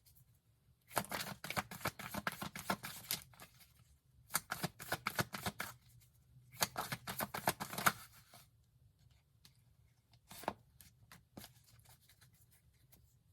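A tarot deck being shuffled by hand in three quick bursts of rapid card clicking, then a few single card taps as a card is drawn.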